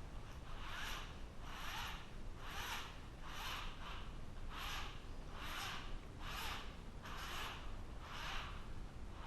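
Rhythmic rasping strokes by hand, a little under one a second, each a short hiss like rubbing or filing on metal.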